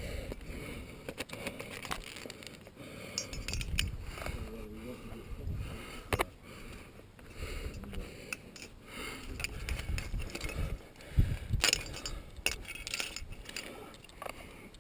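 A climber's metal climbing gear clinking and jangling, with scattered knocks and scraping as hands and feet work the rock. A brief vocal sound comes in about four seconds in.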